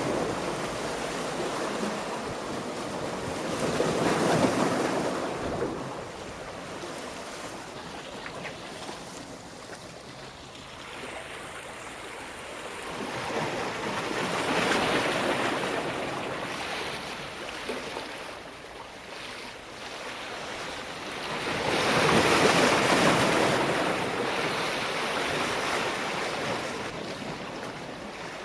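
Sea waves surging and breaking: a steady wash of surf that swells up three times, about every eight to ten seconds, and falls back between.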